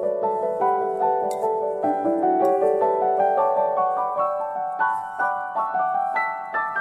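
Background piano music, a melody of notes played one after another.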